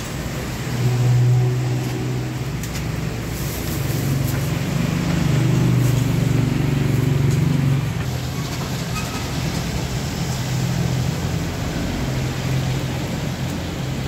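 A motor vehicle's engine running close by: a low, steady hum that swells briefly about a second in and again for a few seconds around the middle.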